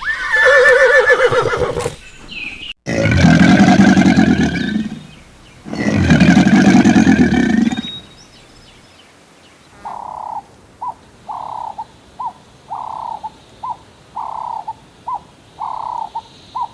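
Farm animals calling: three loud, drawn-out calls in the first eight seconds. Then, from about ten seconds in, about a dozen short, higher calls in quick succession.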